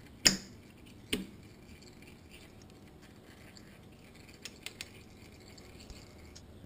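An 8 mm wrench clicking against the bolts of a Honda CBX250 Twister's oil-filter cover as the bolts are loosened. Two sharp metallic clicks come in the first second and a half, then a few faint ticks about four and a half seconds in.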